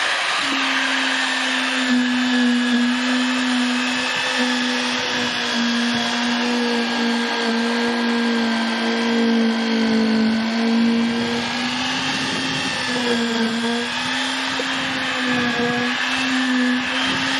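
Electric cement mixer running steadily, its motor giving a continuous hum that wavers slightly in pitch.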